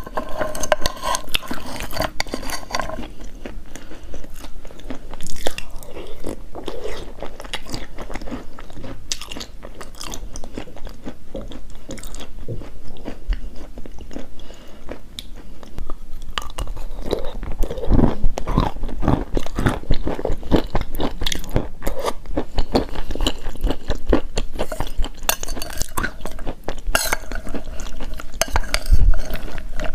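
Chalk being bitten and chewed close to the microphone: dense, irregular crunching throughout, with heavier bites around 18 seconds in and again near the end.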